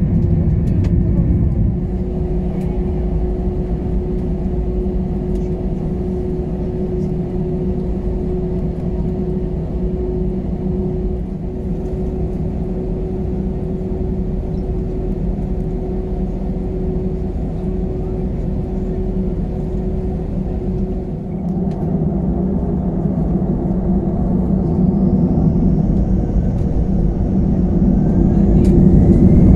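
Airbus A320 cabin noise while taxiing: a steady low rumble of the engines with a steady hum. Near the end the engines' whine rises in pitch and the noise grows louder as thrust is increased.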